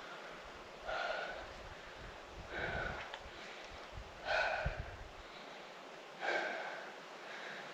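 Four short breathy gasps, one about every two seconds, with a low rumble under the middle ones.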